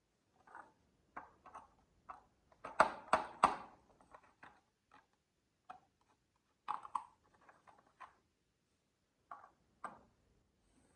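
Marbles clicking and clattering down a HABA marble run track, in irregular hard little knocks with a loud cluster of hits about three seconds in and more groups near the middle and end.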